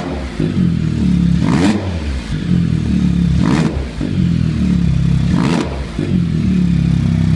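Can-Am Spyder F3's Rotax 1330 three-cylinder engine idling, deep and throaty through a stainless primary-muffler replacement pipe and the stock rear pipe. Three short sharp bursts of noise come about two seconds apart over the steady idle.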